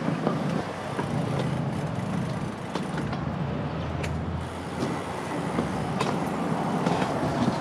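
Steady city street traffic noise, with a low engine hum from a passing vehicle swelling about three seconds in.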